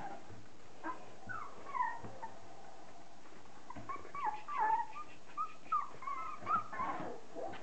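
Month-old Border Collie puppies whining: a few short high calls in the first couple of seconds, then a busier run of overlapping whines in the second half.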